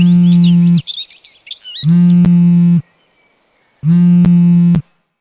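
A mobile phone buzzing for an incoming call: a low, rattling buzz about a second long, repeated every two seconds. Birds chirp between the first two buzzes.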